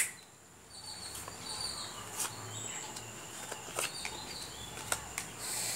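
Playing cards laid down on a wooden tabletop, giving a few sharp clicks about a second apart, over faint chirping of birds in the background.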